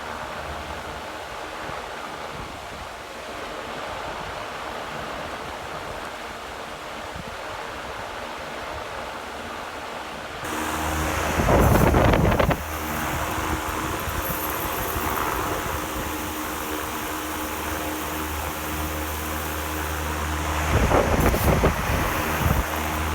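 Steady rushing air noise while wheat is winnowed. About halfway through, a low motor hum like an electric fan's comes in, and twice there is a loud rushing noise about a second long, most likely grain being poured through the airstream.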